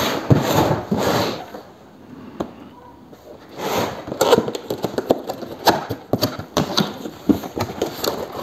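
Cardboard box handled on a workbench: rustling and scraping as it is turned, a short lull, then a run of rustles, taps and cardboard crackles from about three and a half seconds in as the top flaps are pulled open.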